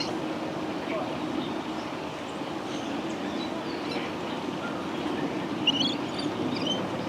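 Steady low rumbling background noise, with a quick run of short, high bird chirps near the end.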